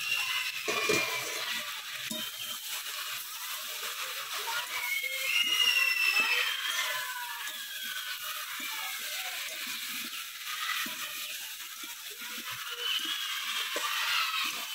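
A covered pan of curry sizzling and crackling on the stove as it cooks in oil. Short high whistling chirps rise and fall over it several times, the clearest about five to six seconds in.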